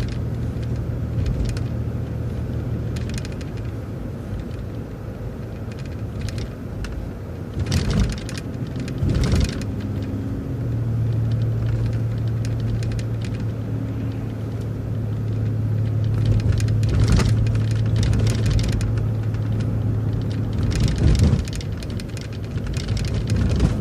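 City transit bus driving along, its engine drone steady and low, shifting to a new steady pitch about ten seconds in, with road noise and a few short knocks and rattles.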